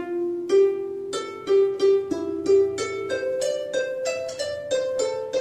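Background music: a plucked string instrument playing a melody of short, quickly decaying notes, about two to three a second.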